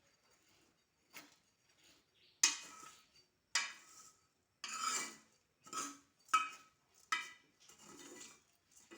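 A spoon stirring and scraping rice and dry spices as they dry-roast in a wok, in a run of about eight separate strokes starting a couple of seconds in.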